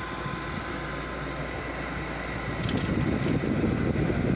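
2007 Frigidaire 5200 BTU window air conditioner running in cooling mode, its fan blowing air with a steady rushing hum and a faint steady whine; it grows somewhat louder about halfway through.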